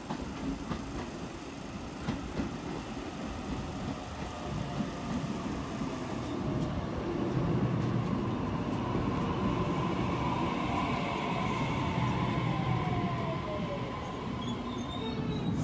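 Sydney Trains double-deck electric suburban train pulling into the platform. Its running noise grows as it passes close by, and its traction motors give a whine that falls steadily in pitch over the last several seconds as the train brakes toward a stop.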